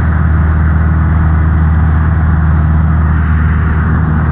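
Steady drone of a Cessna 172N's four-cylinder piston engine and propeller in cruise, heard inside the cockpit, with a strong low hum and no change in pitch.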